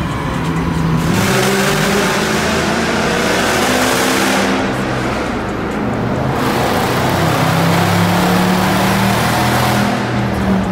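Car engines accelerating hard through a road tunnel, the exhaust echoing off the walls, in two long full-throttle pulls: one starting about a second in, the other from about six and a half seconds to near the end.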